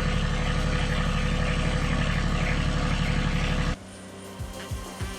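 Wood-Mizer LX150 portable sawmill running steadily as it takes a cut. The sound stops abruptly about three and a half seconds in, and quieter background music follows.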